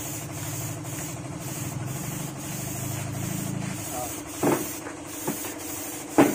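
Air spray gun hissing in short passes as paint is sprayed onto a small boat engine, over a steady motor hum that eases off about four seconds in. A few short, sharp louder sounds come near the end.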